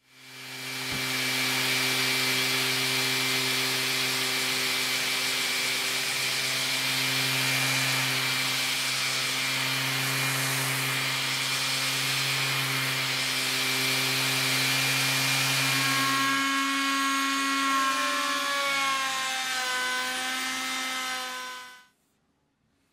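Electric orbital sander running steadily and sanding plywood edges, a hum with a rushing grit sound. About two-thirds of the way through its tones shift and waver, and the sound cuts off suddenly near the end.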